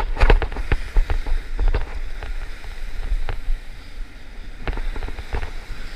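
Wind buffeting the microphone over waves washing against a rock ledge, with irregular sharp clicks and knocks scattered throughout.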